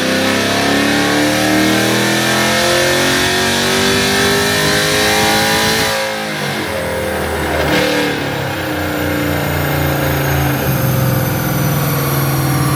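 Cammed Camaro SS V8 under hard acceleration, its pitch climbing steadily for about six seconds, then falling sharply. It climbs again briefly and falls again, then runs steadier at a lower pitch.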